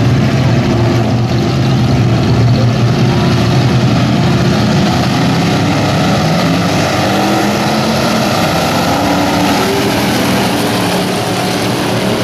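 A field of dirt-track stock car engines running together in a steady, loud drone, their pitches drifting slightly up and down as the cars circulate bunched up at low speed.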